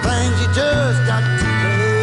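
Background music: a song with guitar and a steady bass line under a gliding melody.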